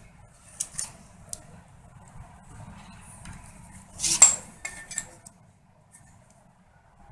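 Small metal parts clinking and knocking as they are handled: a few light clicks in the first second and a half, then the loudest clink about four seconds in, ringing briefly, with a few smaller ones just after. A faint low hum runs underneath.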